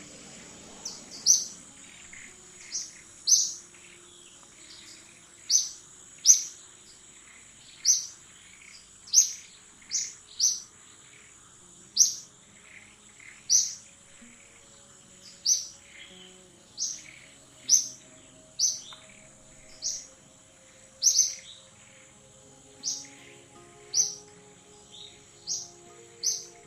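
A bird giving short, sharp high chirps over and over, about one a second, over a steady high insect drone.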